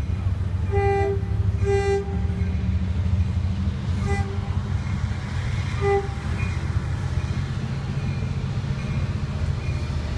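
LIRR DE30AC diesel locomotive sounding several short horn blasts for the grade crossing as it approaches, over a steady low rumble of diesel engines.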